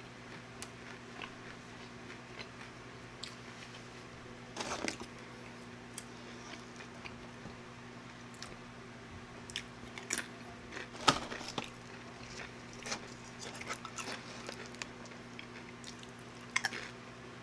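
A person chewing and biting food close to the microphone, with scattered crisp crunches and wet mouth clicks, the sharpest about eleven seconds in.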